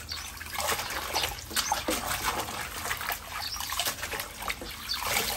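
Water sloshing and splashing irregularly in a sink basin as hands swish a load of leafy greens through it to wash them.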